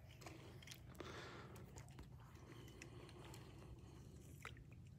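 Near silence: a faint low hum with scattered small clicks and ticks.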